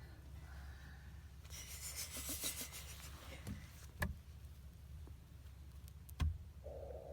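Crinkling of a snack bag for about a second and a half, followed by two sharp clicks, the second one the loudest.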